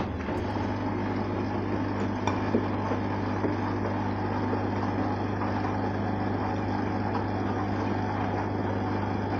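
Arçelik 3340 SJ front-loading washing machine running its wash, a steady motor hum under the sound of the laundry turning in water in the drum, with a couple of light clicks about two seconds in.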